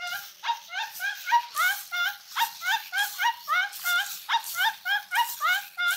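Zoomer robot dog toy clucking like a chicken through its small speaker: a fast, steady run of short electronic cluck notes that slide upward in pitch, about three a second.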